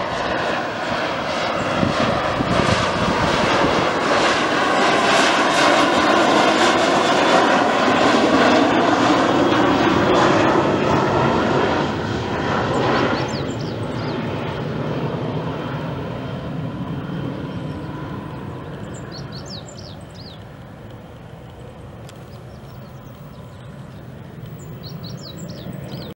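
Cessna 680 Citation Sovereign business jet's twin Pratt & Whitney Canada PW306C turbofans on a low flyover. The loud jet noise has a sweeping tone and peaks about eight seconds in, then fades steadily as the jet banks and climbs away.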